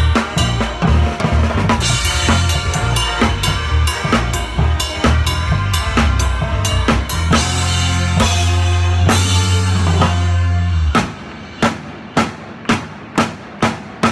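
Band music driven by a drum kit, with bass drum, snare and cymbals, and a long held low note near the end of the phrase. About three seconds before the end the band drops out, leaving single strikes at about two or three a second.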